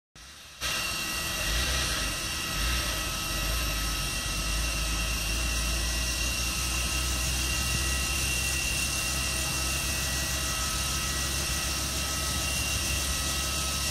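Robinson R44 Raven II helicopter running steadily on the ground, its six-cylinder Lycoming piston engine turning the two-blade main rotor, with a low hum and a few steady high tones.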